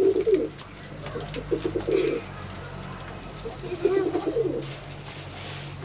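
Domestic pigeons cooing: three throbbing, rolling coos about two seconds apart.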